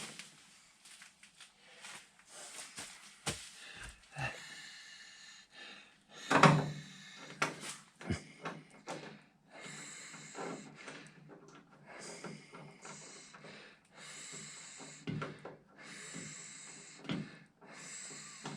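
Scattered knocks and clicks of hand work on vehicle parts, with one loud knock about six seconds in and, later, a run of short hissy noises that start and stop abruptly.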